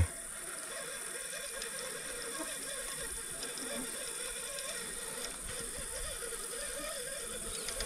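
Fishing reel on a trolling rod working against a hooked fish as it is played: a steady mechanical whirring and clicking of the reel's gears and ratchet.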